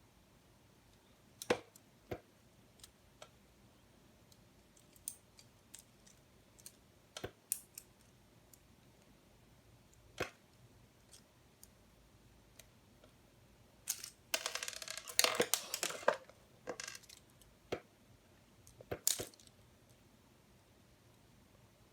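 Plastic LEGO Technic pieces clicking and clattering as they are handled and fitted together: single scattered clicks, and a dense clatter of loose pieces for about two seconds two-thirds of the way through.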